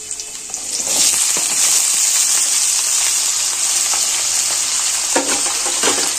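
Diced raw potatoes tipped into hot mustard oil in a kadhai: the oil's quieter sizzle jumps to a loud, steady sizzle about a second in, with a couple of short scrapes near the end.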